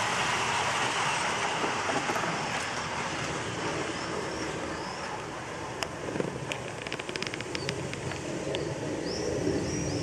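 Garden model railway freight train rolling past on its track, the steady rumble of its wheels fading over the first few seconds as the last wagons go by. Birds chirp, and a quick run of faint clicks comes about seven seconds in.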